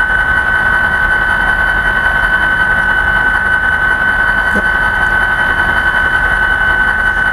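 HO-scale SD40-2 model's sound system playing a turbocharged EMD 16-645 diesel prime mover with non-silenced exhaust at idle: a steady low rumble with a constant high whine over it.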